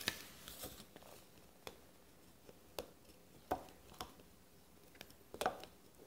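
Fingernail picking and scratching at the edge of a sticker on a small wooden cube, faint scattered clicks and scrapes with a few sharper ones near the middle and end; the sticker is stuck fast and won't lift easily.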